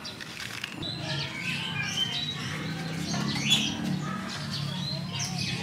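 Birds chirping in quick, high, rising and falling calls, with low sustained music underneath from about a second in.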